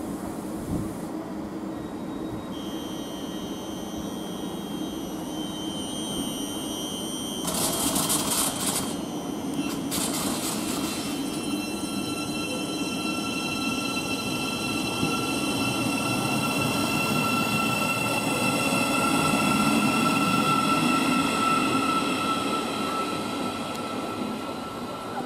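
Thameslink Class 700 Desiro City electric trains at a station platform, their traction equipment giving a steady high-pitched whine made of several tones. Two short hissing bursts come about eight and ten seconds in, and the train noise grows louder in the second half as another unit pulls in.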